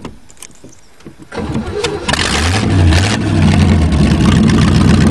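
Carbureted car engine being cranked by the starter. It catches after about a second, revs up briefly and settles into a steady run: a restart after the engine died on the test drive.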